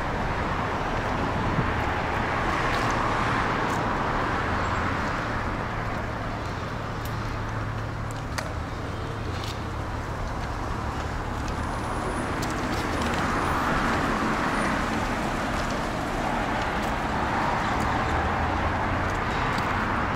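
City road traffic on a multi-lane avenue: a steady wash of car and bus tyre and engine noise that swells a few times as vehicles pass.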